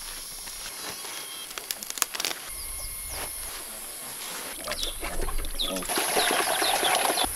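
A few sharp clicks and rustles about two seconds in, then a pen of pigs and chickens at feeding time: grunts, squeals and short chirps, loudest over the last second and a half.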